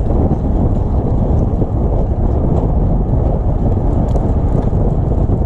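Loud, steady rumble of wind buffeting the microphone, with faint scattered ticks.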